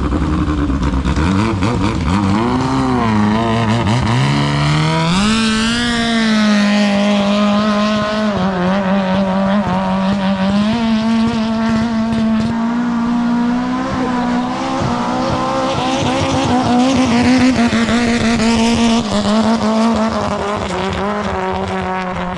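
Long-tail speed boat's unmuffled engine revving up over the first few seconds, then running flat out at a high, slightly wavering pitch.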